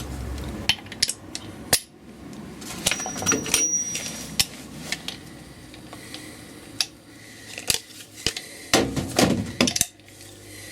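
Steel hub spanner and tommy bar clinking and knocking against each other and the MGA's rear hub nut as the nut is tightened. Irregular metallic clinks, with a quick run of knocks near the end.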